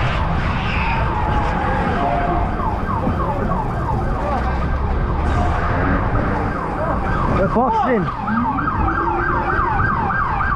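Police siren in a fast yelp, sweeping up and down about three to four times a second, with one short whoop a little before the eight-second mark. Underneath is a steady low rumble of engines and traffic.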